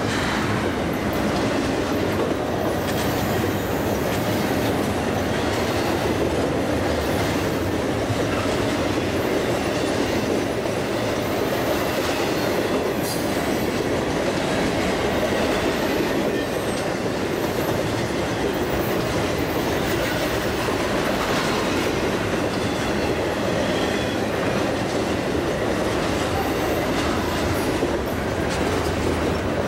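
Double-stack intermodal freight cars rolling past: a steady rumble and clatter of steel wheels on the rails.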